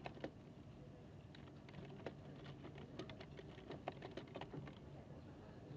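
Library room tone: a steady air-conditioning hum under a scatter of quick, light clicks and taps, several a second at their busiest in the middle.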